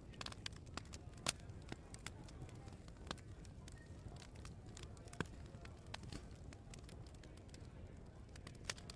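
Wood fire crackling in an open fireplace: irregular sharp pops and snaps, with louder pops about a second in and again around five seconds, over a low steady background rumble.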